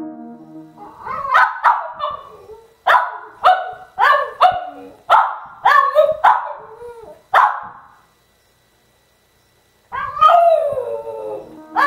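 A dog barking repeatedly in short runs, about ten sharp barks, then after a pause a longer cry falling in pitch and one more bark. This is the distress barking of a dog left alone, a sign of separation anxiety.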